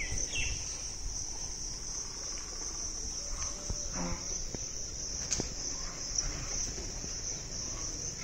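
Steady, high-pitched chorus of insects chirring continuously.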